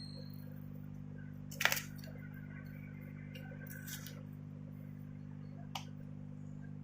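A few sharp clicks from small tools and plastic phone parts being handled while a smartphone is taken apart, the loudest under two seconds in, with fainter ones around four and six seconds, over a steady low hum.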